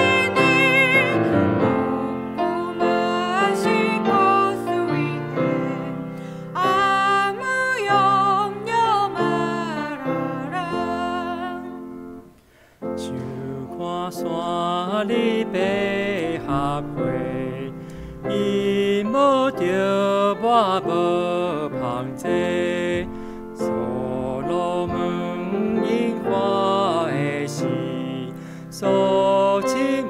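Hymn sung solo with piano accompaniment: a woman sings a verse in Korean, there is a brief break about twelve seconds in, then a man takes up the next verse in Taiwanese.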